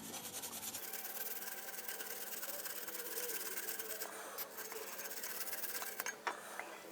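Steady rubbing on a motorcycle's rear brake disc, wiping it clean after a squirt of cleaner, with a few light clicks near the end.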